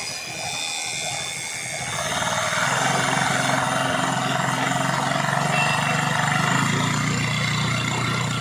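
TVS XL100 BS6 moped's single-cylinder engine running steadily, getting louder about two seconds in and holding that level; this is the engine noise the bike is being checked for.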